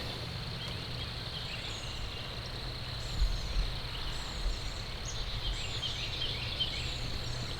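Small songbirds chirping and singing over a steady low rumble, with a couple of dull bumps about three seconds in.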